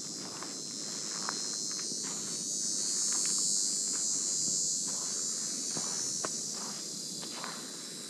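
A steady, high-pitched insect chorus that swells louder in the middle, over the soft, irregular footsteps of someone walking on a sandy trail.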